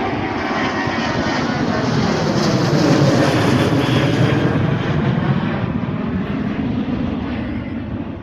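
Jet airliner's engines at take-off power as the plane climbs past. The rushing roar builds to its loudest about three seconds in, then slowly eases off.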